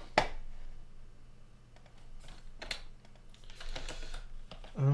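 Typing on a computer keyboard: irregular key clicks with short pauses between them, and a quicker run of keystrokes near the end.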